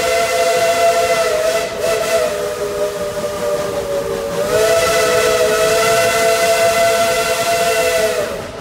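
Steam whistle of Tweetsie Railroad No. 12, a 4-6-0 ten-wheeler steam locomotive, blowing one long drawn-out blast of several notes at once. It is eased off, sagging slightly in pitch, for a few seconds in the middle, then opened up full again and cut off near the end.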